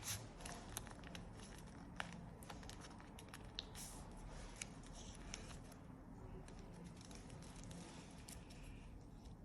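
Faint handling of a sheet of paper being folded: soft rustles and a few light ticks as it is creased and pressed.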